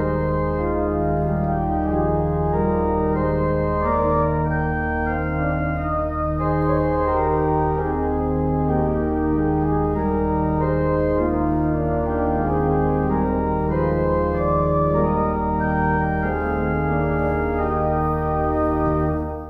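Organ music played as a closing voluntary: sustained chords over a held low bass, with a low note repeated about once a second, fading out at the very end.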